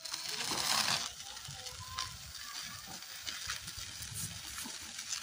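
Solid rubber wheels of a wheelchair rolling over a gravelly dirt road, with grit crunching under the tyres. The noise is loudest in the first second and then carries on more softly.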